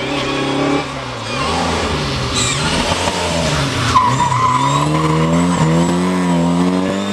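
Opel Manta rally car engine lifting off and braking into a hairpin. About four seconds in, its tyres squeal through the turn, then the engine revs up in a long rising pull as it accelerates out.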